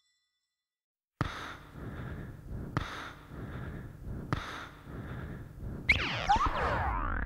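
Background music: after a second of silence, a new track fades in with a soft hit about every one and a half seconds over a breathy wash, then falling and rising electronic sweeps near the end.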